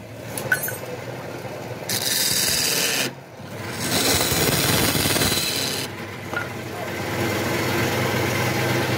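Hand-held turning tool cutting into the end of a spinning palm-wood tube on a lathe, a rasping, scraping hiss in stretches of a second or two with a short break about three seconds in. The lathe's low motor hum runs underneath.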